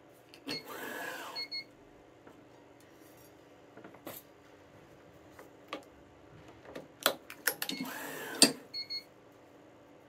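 Yonex ES5 Protech electronic stringing machine's tension head pulling a badminton string twice: each time a short motor whir that rises and falls in pitch, ending in two quick beeps. Sharp clicks of the string clamps and string handling come between the two pulls.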